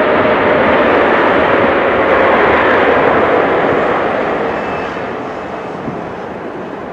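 Jet engines of a widebody twin-jet airliner rolling out after touchdown: a loud rushing jet noise with a faint steady whine, fading gradually from about halfway through as the aircraft moves away.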